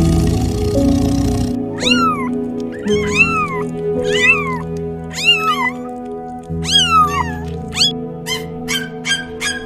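A domestic cat meowing: about six drawn-out meows that rise and fall in pitch, then a quicker run of short meows near the end. A loud rushing noise cuts off at about a second and a half, and steady background music plays throughout.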